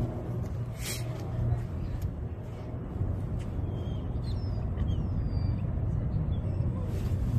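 Steady low rumble of city street traffic, with a brief hiss about a second in and a few faint high squeaks.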